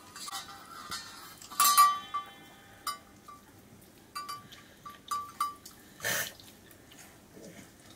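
Light metallic clinks, each ringing at the same pitch, repeated irregularly; the loudest, most ringing one comes about two seconds in. A short noisy burst follows about six seconds in.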